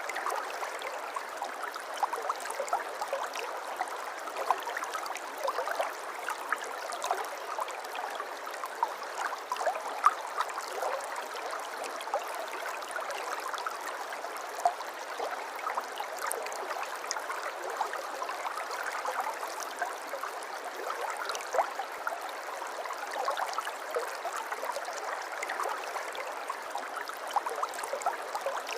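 Small river or stream flowing steadily over stones, a continuous babble of water with many small splashes and gurgles.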